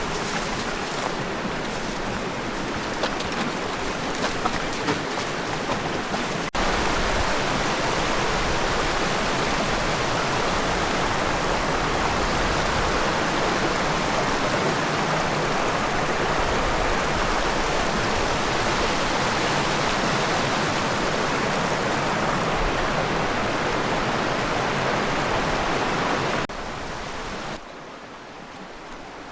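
River water rushing steadily, with a few small splashes or drips in the first few seconds. It jumps louder about six seconds in and drops away sharply near the end.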